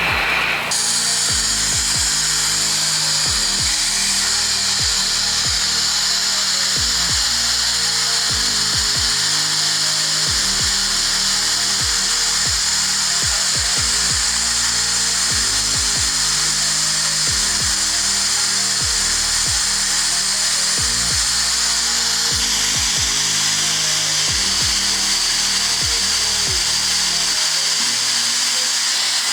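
A steady, loud rush of air hissing, from the air supply pressurising a cured-in-place pipe liner so that it stretches out to the pipe's full size. It starts about a second in. Background music with a beat plays underneath.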